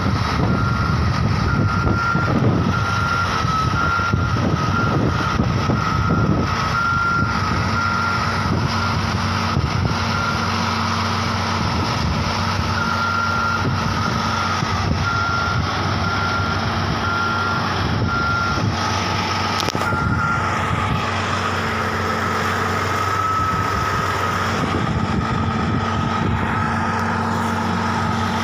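Heavy crane's engine running steadily, with a warning alarm beeping about once a second that stops about two-thirds of the way through.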